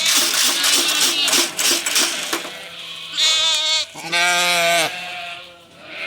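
Katahdin hair sheep bleating: a short quavering bleat about three seconds in, then a louder, longer one. The first two seconds hold a stretch of scuffing, rustling noise.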